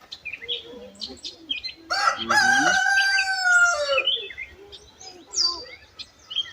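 A rooster crowing once for about two seconds, starting about two seconds in, held steady and falling away at the end, over small birds chirping.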